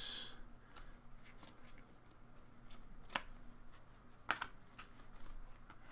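Trading cards being handled by gloved hands as a stack is flipped through: faint sliding and small ticks of card edges, with two sharper clicks about three and four seconds in.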